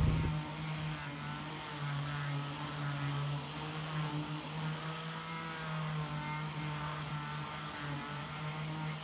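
Electric angle grinder with a sanding disc running steadily while it sands a wooden axe handle, its motor pitch wavering slightly as the disc is pressed into the wood and eased off.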